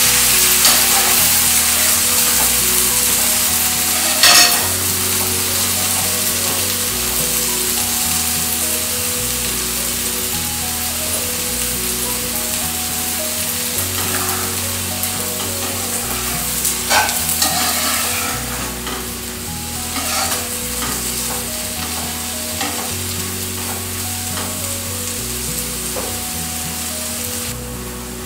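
Chopped onions and tomatoes sizzling as they fry in butter in a non-stick pan, with a spatula stirring and scraping through them and a couple of sharper scrapes, about four and seventeen seconds in. The tomatoes are being fried until soft.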